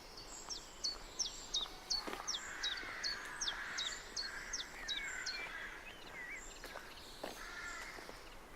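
Wild birds calling: a run of about a dozen high, quick falling notes, roughly two a second, that stops about five seconds in, with harsher, lower calls in between.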